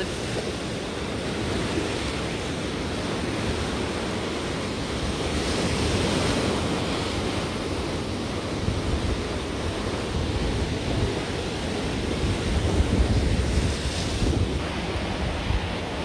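Rough storm surf breaking and washing over a rocky shore, with wind gusting on the microphone, strongest about three quarters of the way through.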